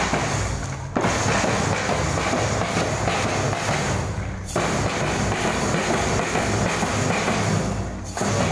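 A school marching band's bass drum and side drums playing a marching beat, with brief lulls about a second in, midway and near the end.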